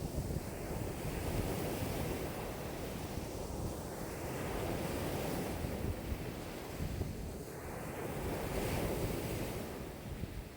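Choppy lake waves breaking and washing against the shore in a strong wind of about 5 m/s, with gusts buffeting the microphone. The rumble swells and eases every few seconds.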